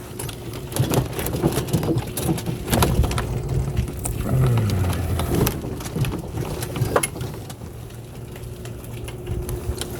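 Solar electric trike being ridden: irregular knocks and rattles from the trike over the road, with a faint steady hum underneath.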